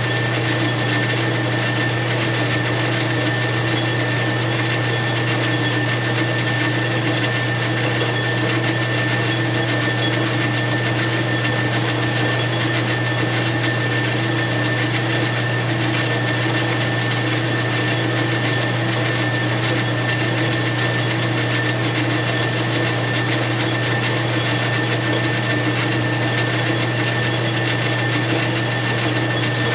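Metal lathe running steadily while machining a Stihl MS661 chainsaw piston: a constant motor hum with a thin, steady high whine over it.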